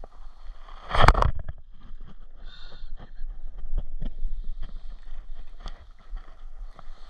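Handling noise from a baitcasting rod and reel in a small boat: a loud thump about a second in, then a scatter of light clicks and knocks.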